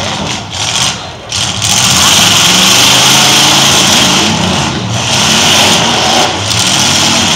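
Several demolition derby trucks' engines running and revving loudly together, with a brief dip about a second in.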